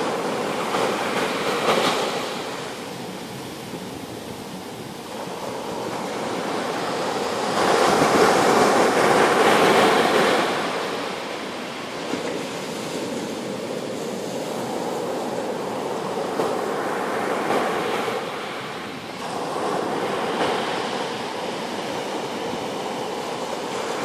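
Small waves breaking and washing up a sandy beach, the surf swelling and fading in slow surges, loudest about eight to ten seconds in.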